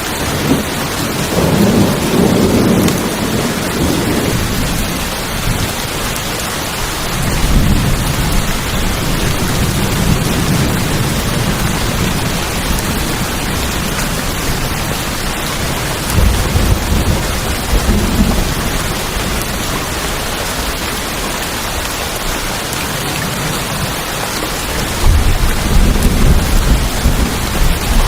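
Steady heavy rain on a tin roof, with four low, rolling rumbles of thunder.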